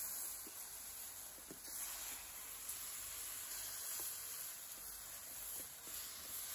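Chicken pieces and chopped onion sizzling in hot oil in an enamelled pan, with a steady hiss, while a plastic slotted spoon stirs them with faint scraping clicks against the pan.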